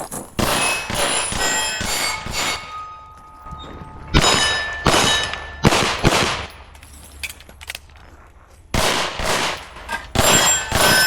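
Pistol shots fired in quick runs, each shot followed by the ringing clang of a steel target plate being hit. Three runs of several shots each are separated by short pauses.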